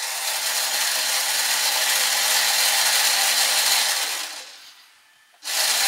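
Small electric winch motor of the Robbe Norderney model's crane, running steadily to lower the daughter boat on its hook. It runs down and stops about four seconds in, then starts again briefly near the end.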